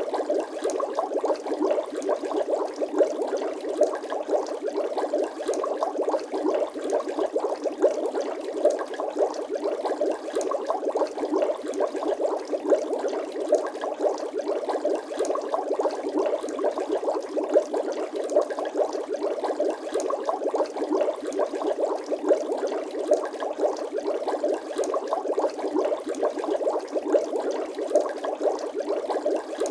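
Bubbling water sound effect: a dense, unbroken stream of small bubbles gurgling and popping, with frequent sharper pops.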